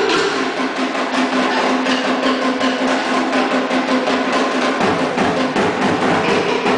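Cook Islands drum ensemble playing a fast, driving rhythm on wooden slit drums (pate), with a deeper drum joining about five seconds in.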